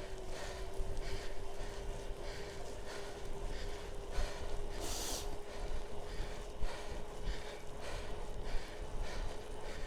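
A cyclist breathing hard and fast under heavy effort, about two breaths a second, with wind rumbling on the microphone and a faint steady tone underneath. A brief louder hiss comes about halfway through.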